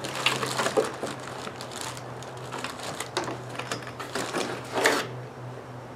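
Cardboard box and plastic-bagged string-trimmer parts rustling, scraping and knocking as they are lifted out of the packaging, with a louder scrape about five seconds in. A steady low hum runs underneath.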